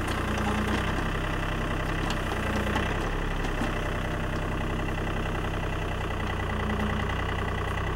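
John Deere compact tractor's diesel engine running steadily while its backhoe digs and swings, the engine note holding even, with a slightly higher hum that swells briefly a few times as the arm moves.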